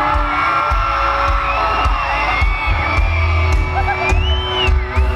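A live country band plays loud through a concert sound system, with a heavy bass-and-drum beat and long held, sliding high notes. A crowd whoops over it.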